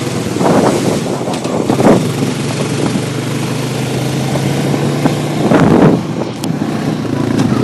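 ATV engine running at a steady pace under way, with three brief rushing surges of noise, about half a second, two seconds and almost six seconds in.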